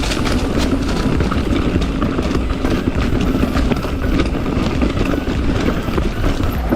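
Mountain bike descending fast over a rocky trail: a dense, continuous rumble of tyres on rock, with many quick knocks and rattles from the bike as it hammers through the chunk.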